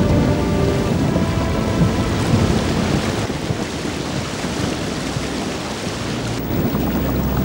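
Thunderstorm: steady heavy rain with rolling thunder. About six seconds in, it gives way to a muffled, low underwater rumble.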